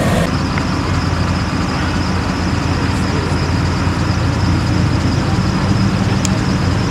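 Duramax 6.6-litre turbodiesel V8 of a Chevy 2500HD pulling truck running steadily at low revs, with no revving.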